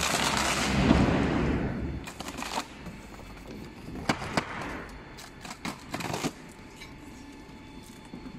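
Corrugated-box shape cutting machine running with a low hum and a rushing noise that fade out over the first two seconds. Then come a series of sharp plastic snaps and crackles as the cut PP hollow sheet is pressed and worked free of the steel-rule cutting die.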